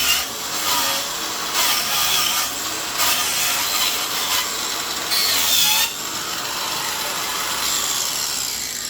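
Battery-powered DeWalt angle grinder fitted with a chainsaw-chain wheel, running and cutting into wood, biting harder in several short bursts and once for nearly a second about five seconds in. Near the end the sound fades as the grinder winds down.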